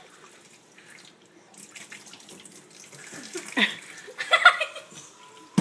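Kitchen faucet running, its water stream splashing into a stainless steel sink, with a couple of short voice sounds about three and a half and four and a half seconds in.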